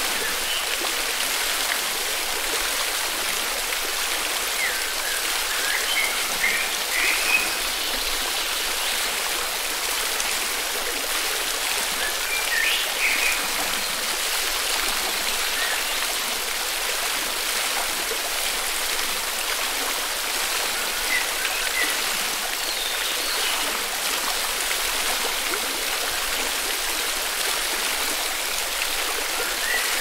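A forest river flowing, a steady rush of water, with a few brief bird chirps now and then.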